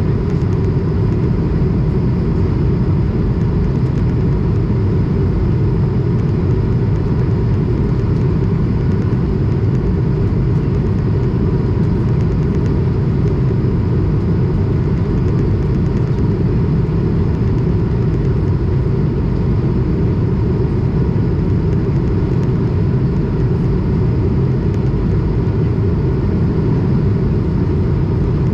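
Steady cabin noise of an Airbus A220 in flight: the low, even rush of airflow and its Pratt & Whitney PW1500G geared turbofan engines, with a faint steady whine.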